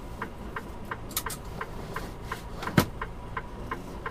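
Turn-signal flasher ticking steadily about three times a second inside a semi-truck cab, over the low hum of the truck's engine at a crawl. There are a couple of short clicks a little after a second and one sharper, louder click near three seconds.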